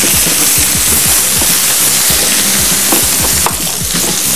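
Food sizzling steadily in a hot frying pan, with background music underneath.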